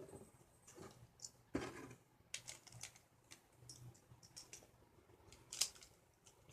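Faint, irregular clicks and taps of hard plastic Beyblade Burst top parts being handled and fitted together. There is a louder click about one and a half seconds in and another near the end.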